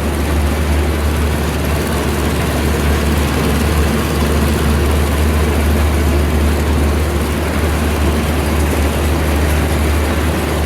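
New Holland 1469 haybine's engine running steadily at constant speed, with a strong low hum under a rough mechanical noise.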